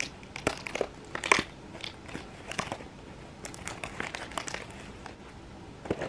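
Thin clear plastic cake packaging crinkling and clicking as hands handle it: a run of irregular crackles and taps, the loudest about a second in.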